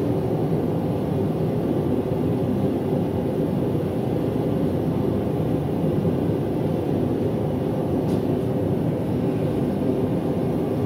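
Propane forge burner running, a loud, steady rushing noise with no breaks.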